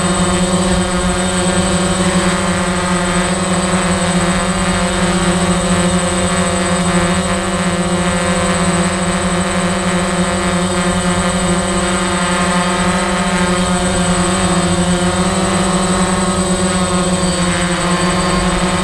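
Small quadcopter drone's propellers and motors humming steadily as it hovers and moves slowly, one even, high buzzing hum with no breaks.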